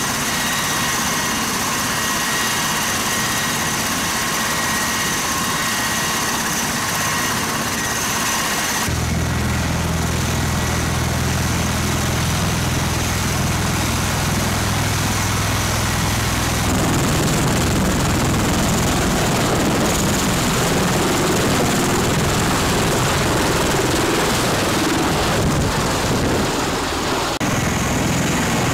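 MV-22 Osprey tiltrotor running its twin turboshaft engines and proprotors. A steady high turbine whine gives way abruptly to a deep rotor drone as the aircraft lifts off and hovers.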